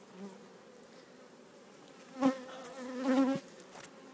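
Honeybees buzzing in a steady hum on the frames of an open brood box. Two short, louder pitched sounds break in about two and three seconds in.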